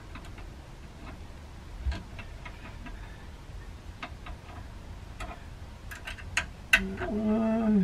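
Scattered light clicks and taps of an Allen wrench tightening the Allen-head screws of a TV wall-mount bracket. Near the end a man gives a short held hum.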